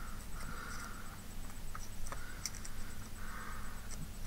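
Artificial craft flower petals being rubbed and pulled apart by fingers: a soft scratchy rustle repeated several times, with a few small clicks.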